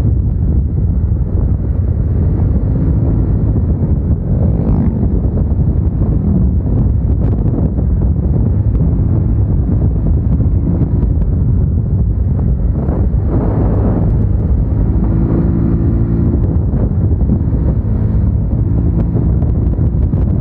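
Wind buffeting a helmet-mounted microphone while riding a motorcycle, with the engine running underneath; the engine note rises and shifts a few times.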